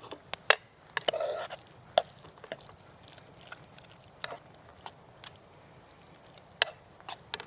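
Spoon clinking and scraping against a metal cooking pot while macaroni and cheese is dished up: a dozen or so irregular sharp clicks, one with a brief metallic ring about a second in.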